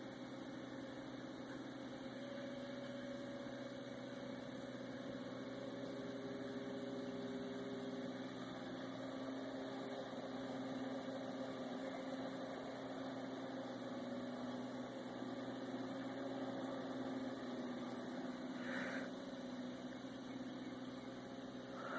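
Distant vehicle engine running steadily, its pitch shifting a little now and then.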